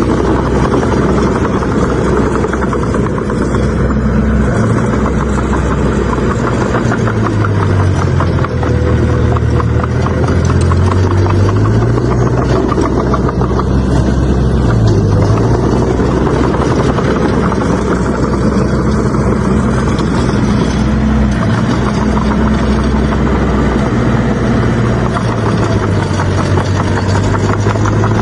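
Bulldozer's diesel engine running hard under load, its pitch sagging and recovering several times, once for a few seconds about a third of the way in, with a steady mechanical clatter over it.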